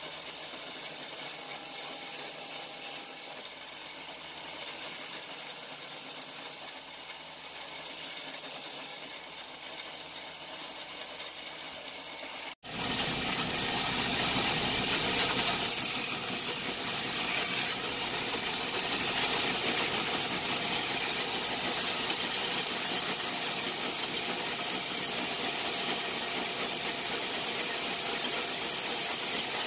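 Steady workshop machine noise. It cuts out for an instant about twelve seconds in and comes back louder.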